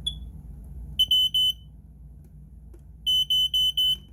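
Firenetics 0906 smoke alarm sounding on test through its Star piezo buzzer: a brief chirp, then three loud, shrill beeps about a second in and four more about three seconds in.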